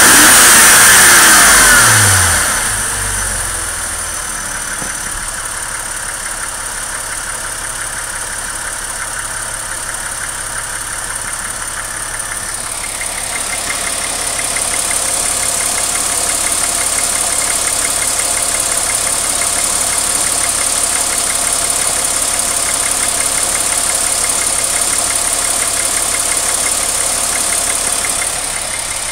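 Porsche Boxster 2.7's flat-six engine blipped, its revs falling back to a steady idle within the first few seconds. It keeps idling with a strange noise the owner cannot identify, and about halfway through a fast, high-pitched ticking joins in over the idle.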